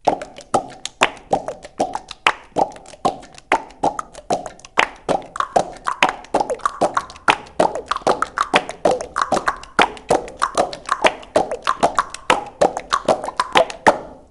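Percussion music of quick, sharp pitched strikes, about four or five a second in a busy rhythm, many of them with a slight downward drop in pitch like a plop.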